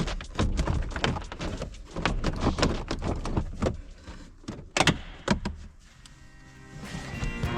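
A run of irregular clicks and knocks, with a few louder ones about five seconds in, growing sparse and quiet toward the end.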